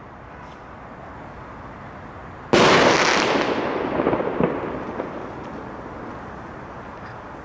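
A firecracker carried aloft by a homemade rocket goes off once in the air about two and a half seconds in: a sharp bang whose echo dies away over a few seconds.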